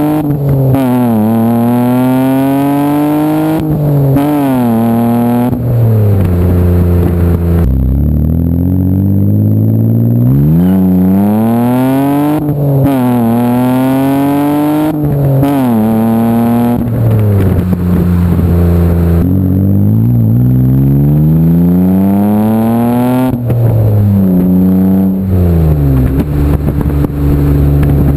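Exhaust note of a 2008 Mitsubishi Eclipse GT's 3.8-litre V6 through a knockoff Injen header-back exhaust, recorded at the tailpipe while driving. The car pulls hard several times: the pitch climbs and drops sharply at each upshift, with stretches where it eases off and the note falls away.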